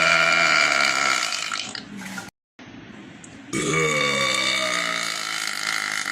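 A woman's long, drawn-out belches, two of them. The first cuts off suddenly a little past two seconds in, and the second starts about three and a half seconds in and is held for several seconds.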